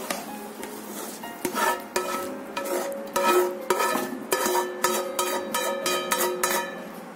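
A spatula scraping and knocking against a frying pan as fried mushrooms and peppers are scraped out into a bowl. The clattering strokes start about a second in and come repeatedly for several seconds, with a faint ringing between them.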